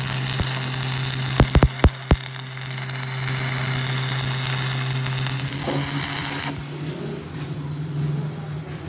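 Stick (electrode) arc welding on a steel gear shaft: the arc hisses steadily over a low buzz, with a quick cluster of sharp pops about a second and a half in. The arc breaks off about six and a half seconds in, and only a lower hum carries on.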